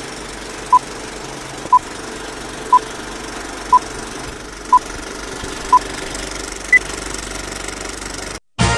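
Short electronic beeps, one a second: six at the same pitch, then a seventh at a higher pitch, like a countdown, over a steady engine-like drone. Near the end the drone cuts off and music starts.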